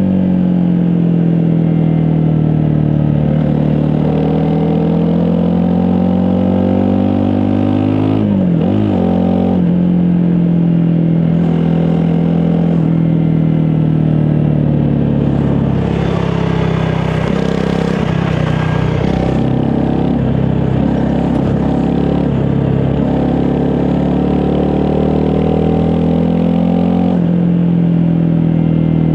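Honda CRF250 Rally's single-cylinder four-stroke engine running under way on a ride, its pitch slowly falling and rising with the throttle. It briefly drops and picks up again about eight seconds in, and there is added rattling from about sixteen to nineteen seconds in.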